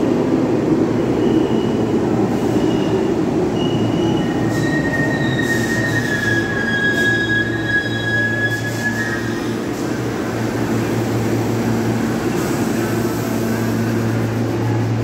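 New York City subway M train at the platform: a low rumble fades early on, high-pitched wheel squeals ring for several seconds in the middle, then the standing train gives off a steady low hum.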